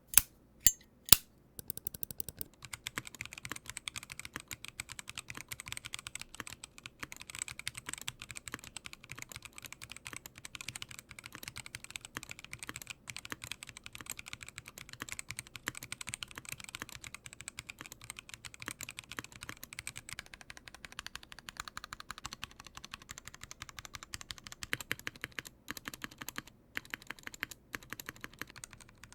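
Typing on a MelGeek Mojo68 plastic gasket-mounted 65% mechanical keyboard with Gateron Pro Brown tactile switches. Three loud single clicks come first, then steady, fast continuous typing.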